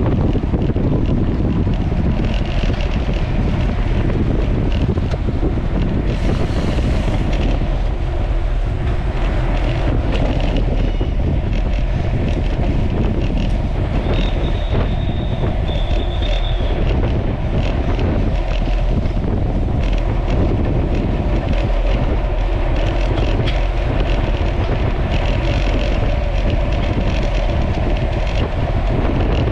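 Loud, steady wind buffeting the microphone during a bicycle race, with a faint high tone briefly about halfway through.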